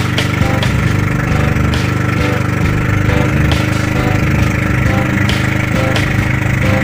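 Small engine of a motorized outrigger boat (bangka) running steadily under way, at an even pitch.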